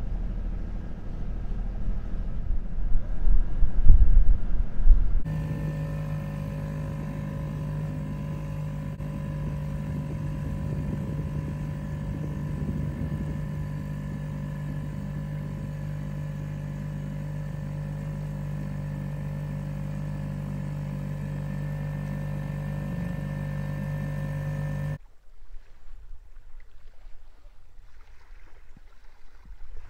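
Wind buffeting the microphone in loud gusts for about five seconds. Then a small boat's outboard motor runs at a steady pitch for about twenty seconds, likely the dinghy taking the sailor ashore. It cuts off suddenly to faint wind and water lapping.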